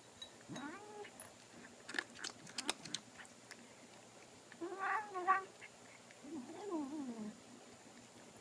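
Domestic cat making short warbling, moaning calls while eating, three in all, with a quick run of chewing clicks between the first and second.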